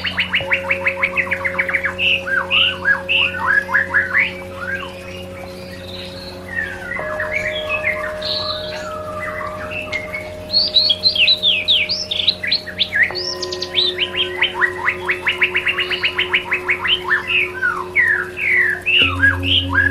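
White-rumped shama song: fast rattling trills and a string of varied, swooping whistled notes. Underneath runs a steady synthesized drone of held tones that shifts pitch a few times.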